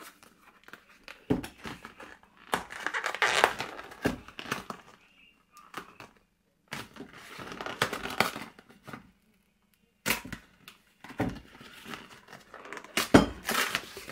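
Cardboard pie boxes being torn open and handled: three spells of ripping and crinkling with sharp little knocks, broken by short pauses.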